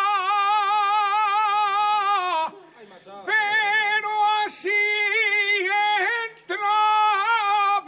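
A man singing Valencian traditional verse (cant valencià) in a high register, with long held notes that waver and curl in ornaments. He breaks off twice for breath, about two and a half seconds in and again near six seconds.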